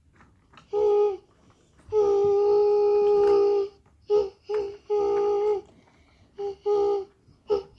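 A child's voice imitating a train horn: a string of hooting notes held on one steady pitch, one long blast of nearly two seconds among about seven shorter ones, some sagging slightly in pitch as they end.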